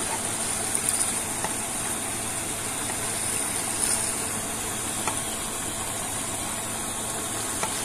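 Water gushing from an irrigation outlet into a concrete channel, a steady rush, with a few small splashes as a man scoops up water and washes his face.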